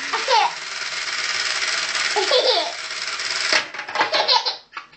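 Pop-up toaster timer running with a rapid, steady rattling buzz that cuts off suddenly about three and a half seconds in, followed by a baby's bursts of laughter near the end.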